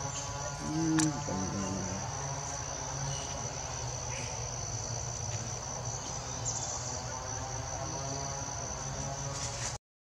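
Steady, high-pitched drone of insects in the surrounding vegetation, with a short vocal sound about a second in.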